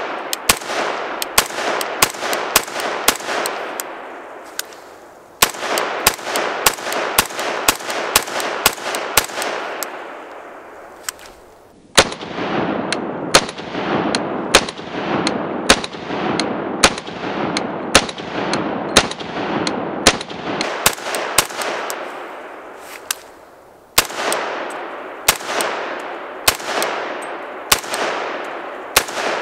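Unsuppressed .300 Blackout AR pistol fired in rapid semi-automatic strings through a Q Cherry Bomb muzzle device, with 150-grain Fiocchi loads. There are four strings of sharp shots, two to three a second, with short pauses between them, each shot ringing out across the range.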